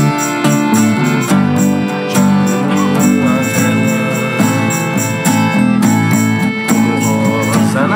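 Band playing an instrumental passage: a piano accordion holds sustained chords and melody over strummed acoustic guitar, with a tambourine jingling a steady beat.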